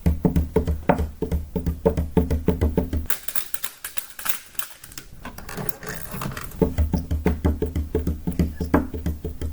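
Fast, even percussive knocking, about four or five a second, each knock with a low thud, like a wood-block beat; it pauses for about three seconds in the middle and then resumes.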